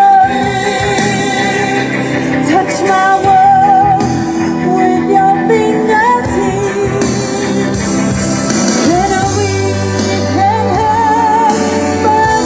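A woman sings a pop song into a microphone over backing music, with held, wavering notes in the melody.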